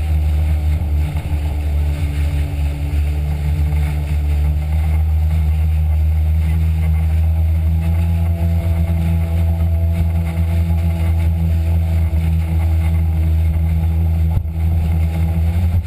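Jet ski engine running steadily at high speed, a deep even drone with water rushing and spraying past the hull.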